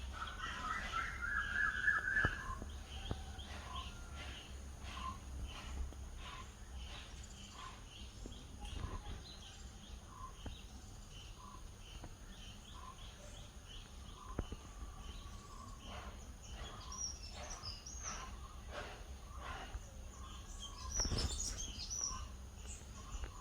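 Birds calling: many short chirps repeating throughout, with a regular series of short lower notes about once a second and a louder cluster of high calls near the end. A low rumble sits under the first couple of seconds.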